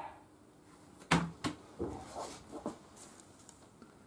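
Quiet handling noises as a slice of cheese is picked up and placed by hand: a few short clicks and soft rustles, the sharpest about a second in, then smaller ones.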